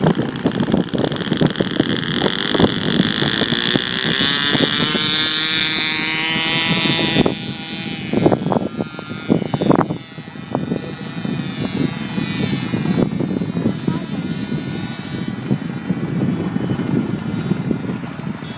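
Nitro glow engine of a wooden RC plane running at high revs in flight, a steady high whine that rises in pitch for a few seconds and then drops away and fades about seven seconds in. A few sharp knocks follow, with wind noise on the microphone.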